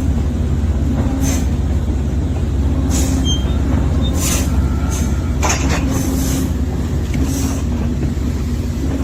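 A heavy machine's engine running steadily with a deep rumble, with a short hiss breaking in now and then, about six times.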